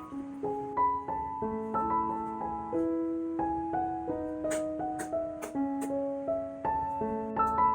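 Background piano music: a gentle melody of single notes over lower held notes.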